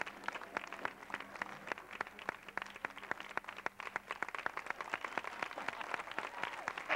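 Scattered hand claps from an audience, a few at a time in an uneven patter.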